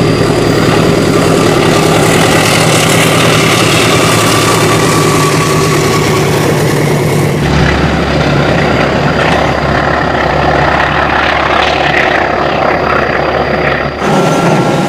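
Diesel locomotive engines running steadily as passenger trains pass. The sound changes abruptly about seven seconds in and again near the end, where one clip cuts to the next.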